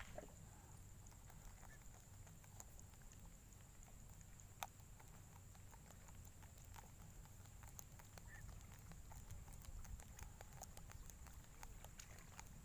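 Near silence: faint low rumble and a thin steady high hiss, with scattered faint ticks and one sharper tick about four and a half seconds in.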